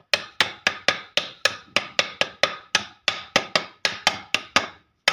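Steel club hammer tapping the side cover of an AR RK-series high-pressure pump, a steady run of sharp metallic knocks about four a second with a short pause about three seconds in. The cover holds an oil seal and is being driven evenly onto the crankcase with equal taps until it seats.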